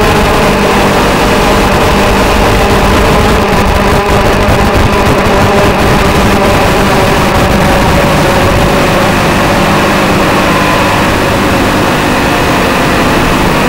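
TBS Gemini mini hexacopter's electric motors and propellers whirring in flight, a steady multi-pitched drone whose tones drift slightly up and down as the throttle changes.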